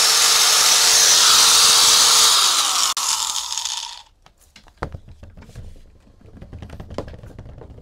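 Mitsushi angle grinder running at full speed with no load, a steady high whir; it is switched off about three seconds in and winds down over roughly a second. Faint clicks and knocks of the tool being handled follow.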